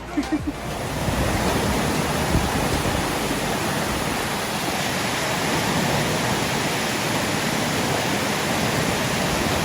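Steady rush of a mountain stream's cascades, an even roar of water without a break.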